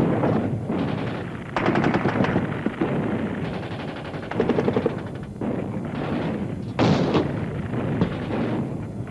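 Battle sound of rapid automatic gunfire: three bursts of machine-gun fire, the loudest about seven seconds in, over a continuous din of gunfire.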